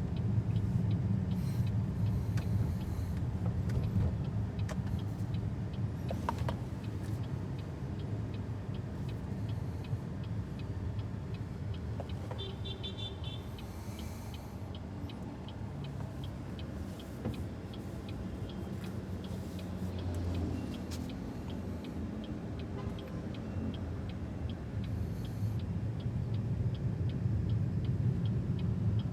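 BYD Seagull electric car driving, heard from inside the cabin: a steady low road and tyre rumble with no engine note. From about the middle on, a regular light ticking runs beneath it.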